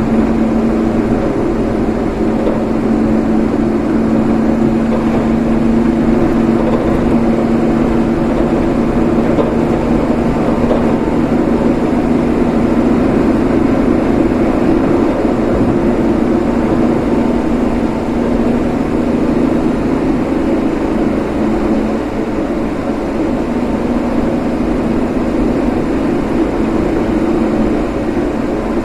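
Car driving along: a steady engine drone with road and tyre noise.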